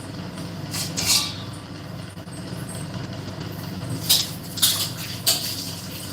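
Kitchen noise during cooking: a steady low hum with short, noisy rasps of utensils or food in a pan, once about a second in and three times around four to five seconds in.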